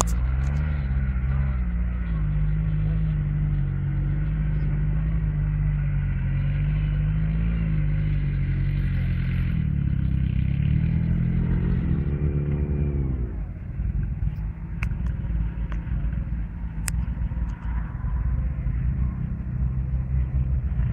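Crossle sporting trials car's engine running and revving as the car works through a trials section, its pitch wavering up and down. A little over halfway through, one rev rises and falls away, and the engine then runs lower and more unevenly.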